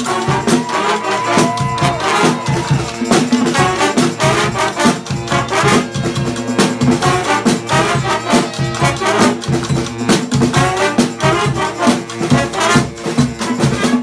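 Brass band playing live: saxophones, trumpets, trombone and sousaphone over a steady beat on snare and bass drums.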